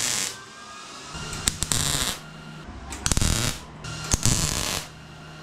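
MIG welder laying short tack welds on a sheet-steel fender repair panel: four brief crackling bursts, each under a second, with a faint hum between them.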